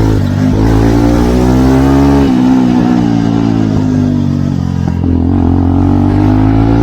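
Jawa Perak motorcycle's single-cylinder engine running loud through an exhaust with both dB killers removed, its pitch rising and falling a little.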